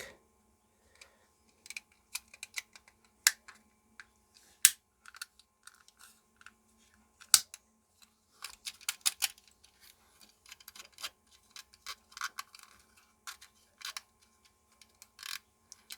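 Irregular small clicks and taps of a battery wall clock's mechanism and casing being handled and fitted back together, a few sharper snaps among them and a busier run of clicking about halfway through.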